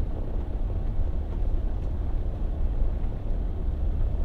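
Car driving on a muddy dirt track, heard from inside the cabin: a steady low rumble of engine and tyres.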